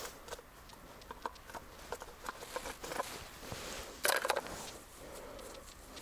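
Irregular soft crunches and clicks of snow being stepped on or disturbed, with a louder crunching cluster about four seconds in.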